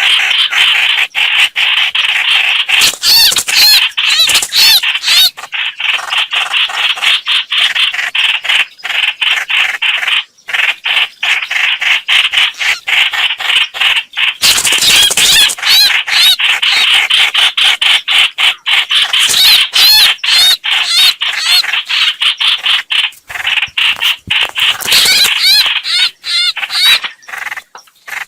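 Recorded calls of the bird Vietnamese trappers call hoạch hoạch: loud, rapid runs of short, harsh, high notes repeated over and over with brief pauses, played as a lure to draw birds to a trap.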